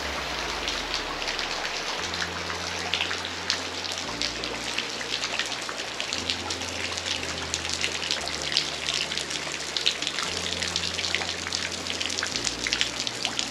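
Water trickling and dripping down a sandstone rock face into a shallow pool: a steady hiss full of small pattering splashes. Low, soft steady notes that change about every two seconds run underneath.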